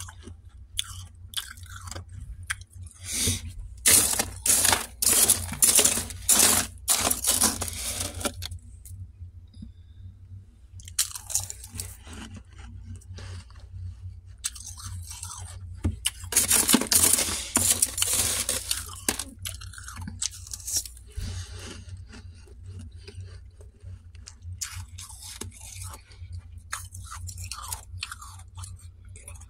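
Freezer frost being crunched and chewed close to the microphone, in bouts of rapid crisp crunches with quieter pauses between them.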